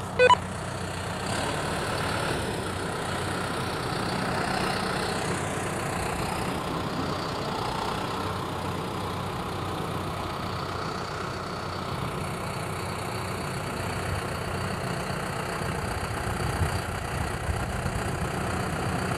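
Farm tractor engine running steadily at low revs as the tractor creeps forward in its lowest gear.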